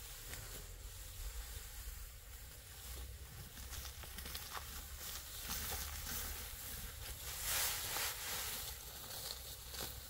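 Dry cut rice stalks rustling and crackling as they are gathered and bundled by hand, louder about eight seconds in, over a low rumble.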